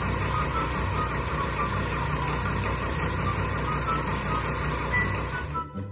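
A paint sprayer's motor running steadily with a low hum, cutting off near the end.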